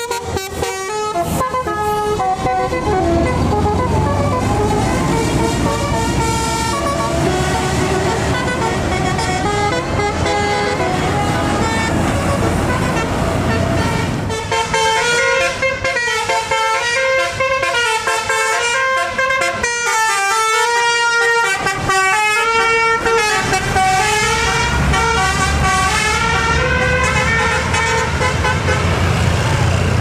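Bus telolet (basuri) musical air horns playing stepping multi-note tunes over the low rumble of a passing bus's engine. About halfway through the rumble thins and a new, clearer horn tune takes over.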